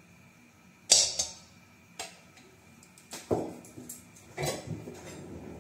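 Steel kitchen utensils and containers clinking and clattering: a sharp metal clank about a second in, a short tick a second later, then a few more knocks and clatters from about three seconds on.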